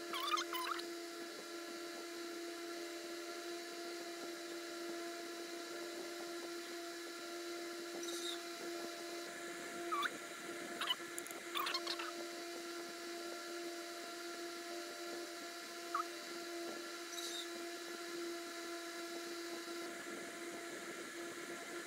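Steady hum of an electric stand fan's motor, with a few light clicks and taps from handling a makeup palette and brush, most of them between about ten and twelve seconds in.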